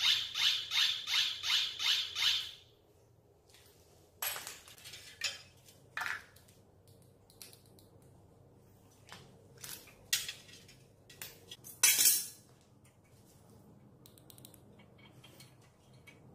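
Electronic buzzer of a bicycle turn-signal rear light beeping rapidly, about four beeps a second, while the signal flashes; it stops about two and a half seconds in. After that come scattered clicks and rattles of small plastic parts being handled, with one louder scraping rasp near the end.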